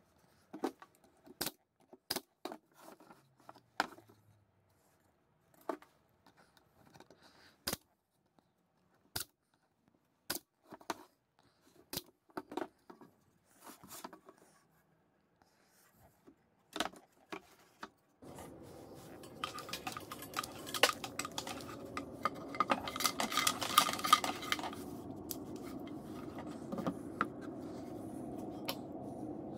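Handling noise on a workbench: scattered light knocks and clicks as plywood box pieces are fitted and set down. About two-thirds in, a steady low hum comes up and a quick flurry of light metallic clinking and rattling follows.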